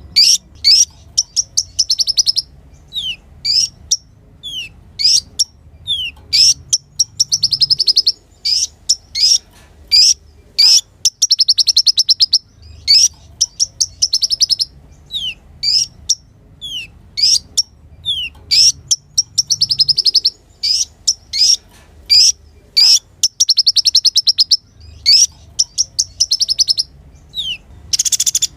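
A kolibri ninja (konin) sunbird singing continuously. Short, sharp falling notes alternate with fast buzzy trills in phrases that repeat every second or two.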